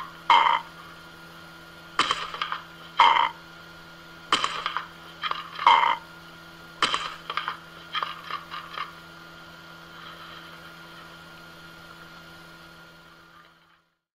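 A plastic food bowl clattering and scraping on a stone countertop in a dozen or so short, sharp knocks, with a quicker run of smaller rattles about eight seconds in. A steady low hum runs underneath until the sound fades out near the end.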